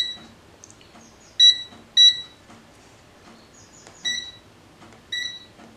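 Five short electronic beeps from a Habotest handheld gas leak detector as its keypad buttons are pressed, each a brief high-pitched tone. The first comes right at the start, two follow close together about a second and a half in, and two more come later, spaced unevenly like separate button presses.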